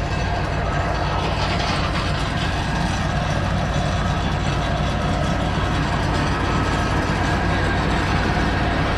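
Combine harvester running steadily while harvesting soybeans, a constant engine drone with machinery noise.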